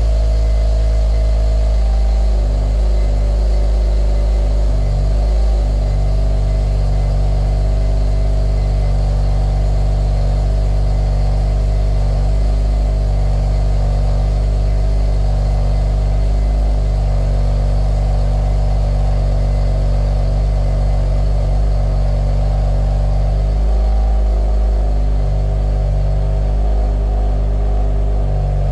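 2016 BMW F80 M3's twin-turbo S55 inline-six idling steadily during a cold start, its exhaust running through catless downpipes and an Active Autowerke equal-length resonated mid pipe.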